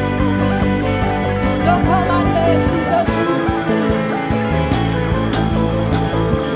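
Live church worship band playing an instrumental passage: bass, drums, keyboard and guitar.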